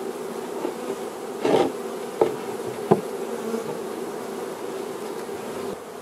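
Honey bees buzzing steadily at the entrance of a swarm box, a freshly hived swarm that has just been stirred up and shaken in. Three short clicks come close together in the middle.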